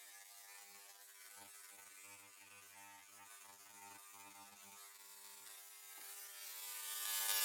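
Ultrasonic cutting knife humming and buzzing as its blade cuts through the ultrasonically welded plastic case of a battery pack, with a hiss that grows louder near the end.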